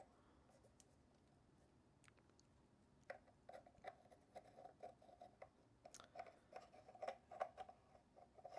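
Faint rubbing and light clicks of parts being fitted back onto a stereo microscope's plastic head, starting about three seconds in after near silence.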